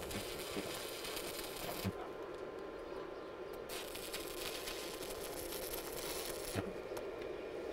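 Electric welding arc crackling on the spreader's steel frame in two runs, the first about two seconds long and the second about three, with a small knock at the end of each run.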